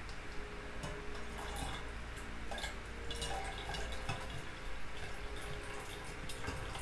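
Water trickling and dripping as rinse water is poured slowly from one glass beaker into another, decanted off settled gold powder, over a steady low hum.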